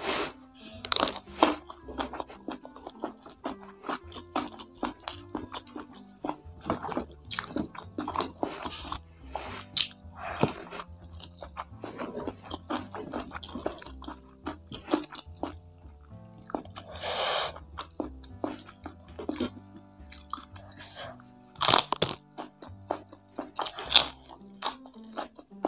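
Close-up mukbang eating sounds: irregular crunching and chewing of fried chicken with crispy kremes flakes and rice, and fresh lettuce bitten near the end. Quiet background music plays underneath.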